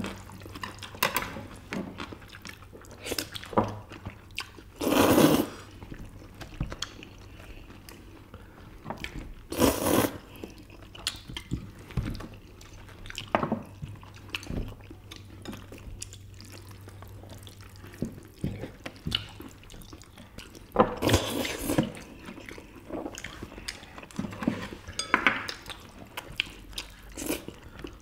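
Noodles in spicy sauce being slurped in several loud, wet, drawn-in bursts, the biggest about five seconds in and again near ten and twenty-one seconds, between wet chewing and light clicks of chopsticks and tongs on dishes.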